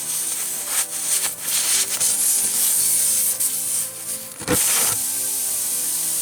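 Scraping and rubbing as a screw is worked out of a car tire's tread, a sharp click about four and a half seconds in, then a steady hiss of air escaping from the puncture.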